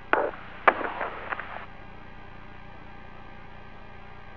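Steady hiss of the shuttle crew's intercom and radio line with a faint hum, after a few brief clicks and clipped sounds in the first second and a half.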